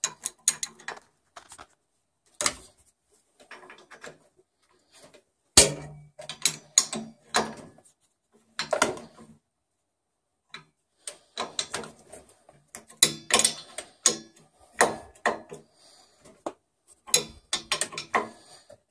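A metal wrench clicking and clinking on the nuts of a circulator pump's flange as they are tightened, in irregular runs of sharp clicks with short pauses between.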